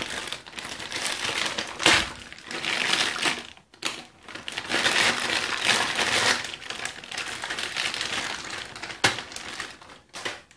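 Clear plastic bag crinkling and rustling as it is handled and pulled off a plastic toilet-cistern inlet valve, with a few sharp crackles and a brief pause a little under four seconds in.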